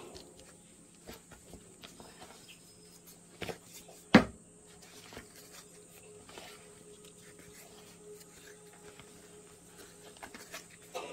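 A kitten play-fighting a white tube on a foam-covered chair: light scuffling, scraping and rustling, with one sharp loud knock about four seconds in.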